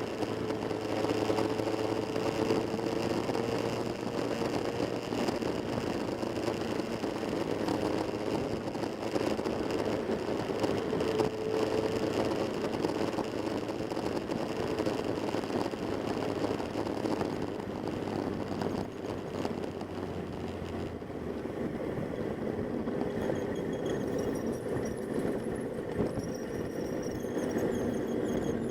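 Motorcycle engines running steadily, the sound shifting about two-thirds of the way through.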